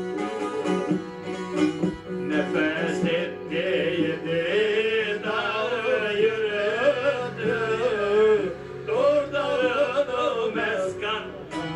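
Semah music: a long-necked plucked lute, the bağlama, played in a steady rhythm, joined about two seconds in by a solo voice singing a wavering, ornamented melody.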